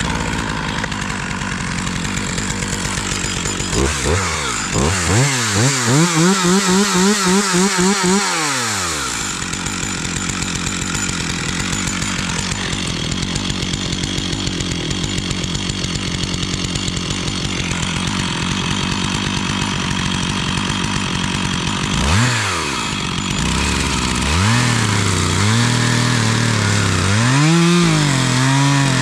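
Stihl chainsaw engine running throughout, starting abruptly; the throttle is blipped up and down about four seconds in and again in the last seven seconds, with a steadier, lower run between.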